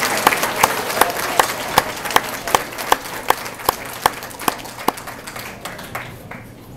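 A hall full of students applauding, with one loud clapper close by keeping an even beat of about two and a half claps a second. The applause fades away over about six seconds.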